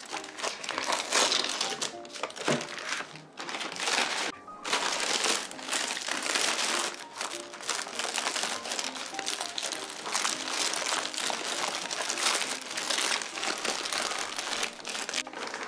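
Plastic wrap and thin plastic bags crinkling almost continuously as takeout food containers are unwrapped by hand.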